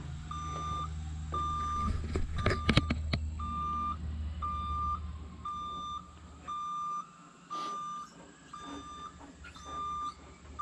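JLG lift's motion alarm beeping steadily, about one half-second beep a second, as the lift comes down. A low machine hum runs under it and drops out about two-thirds of the way through, with a few sharp clacks near the three-second mark.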